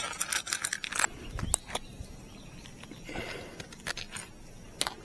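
Scattered sharp clicks and light taps of small loose metal pieces, stray screws or nails being gathered up by hand.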